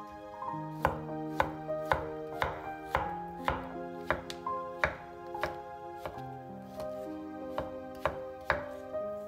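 Chef's knife slicing button mushrooms and knocking on a wooden cutting board, about two strokes a second, over background music with sustained notes.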